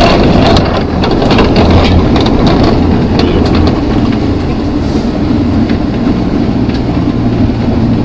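Moving road vehicle heard from inside the cabin: a steady engine hum under road and tyre rumble, with a run of light clicks and rattles through the first few seconds.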